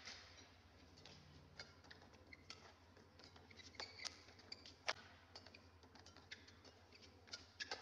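Shuttlecock being struck back and forth with badminton rackets in a rally: sharp, faint clicks at irregular intervals, the loudest about five seconds in, with short squeaks of shoes on the court.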